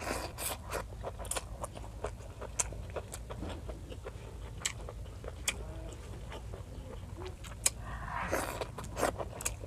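Close-miked chewing and biting of grilled squid and fresh seaweed: wet, crisp mouth clicks and crunches several times a second, with a louder, longer bite about eight seconds in.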